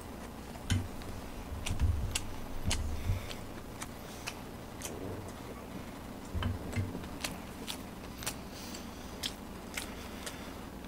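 Eating close to a microphone: chewing and mouth noises, with many sharp clicks of chopsticks and utensils, and a few low thumps about a second in, around two and three seconds, and again past six seconds.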